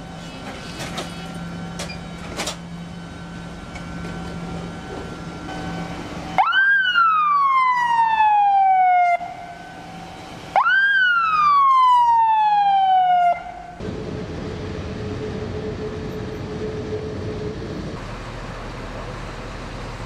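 Ambulance siren sounding two long wails, each jumping up quickly and then sliding slowly down in pitch over about three seconds. Around them is steady vehicle and street noise.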